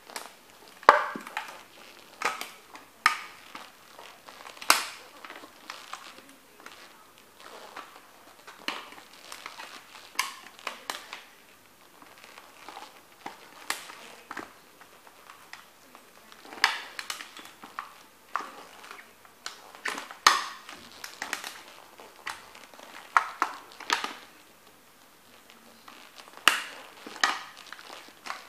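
Heavy leather boots stomping and grinding down on a toy Corvette, crushing it: a long run of irregular sharp crunches and knocks, often several close together, with pauses of a second or two between bursts.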